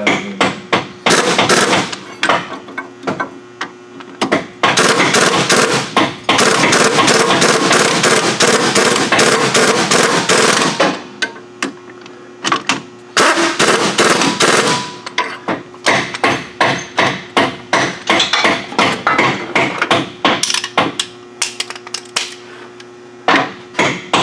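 Pneumatic impact wrench hammering as it drives suspension bolts on the front upper control arm of a truck. It runs in bursts: a long burst of about six seconds starting near five seconds in and a shorter one a little past the middle, with rapid clicking between.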